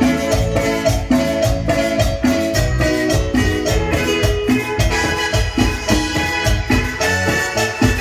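Live band playing Latin dance music: an electronic keyboard melody over bass and a steady beat, with metal güiros scraped in a quick even rhythm.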